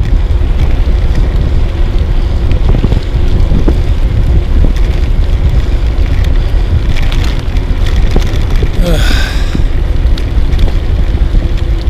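Wind buffeting the microphone: a steady, loud low rumble of noise with rain-like hiss over it, and a brief higher-pitched sound about nine seconds in.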